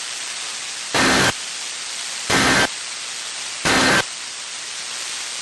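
Three short bursts of EAS digital data tones about 1.3 seconds apart, over steady radio static hiss: the end-of-message code that closes the alert.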